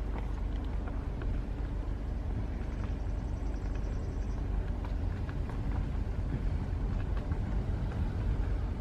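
Car driving slowly, a steady low rumble of engine and tyres heard from inside the cabin, with a few faint ticks.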